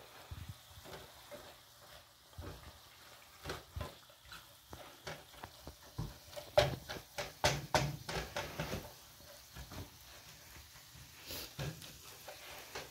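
Black plastic spatula stirring and chopping browned ground beef in a metal frying pan, with a faint sizzle. A quick run of scrapes and taps from about six to nine seconds in is the loudest part.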